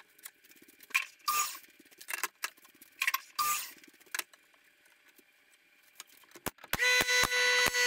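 Wooden pallet boards knocked and slid into place on a wooden frame: a scatter of short clacks with a few brief scraping hisses. About six and a half seconds in, background music with a steady beat starts.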